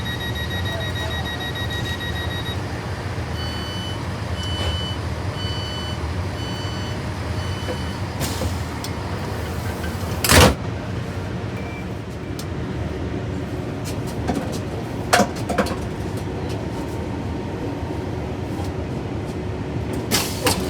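Class 166 diesel multiple unit standing with its engine humming while the door warning tones, borrowed from a Class 158, sound: a held tone for the first couple of seconds, then about five short beeps about once a second. About ten seconds in there is one loud thud, then smaller knocks over the engine hum, and the beeping starts again at the very end.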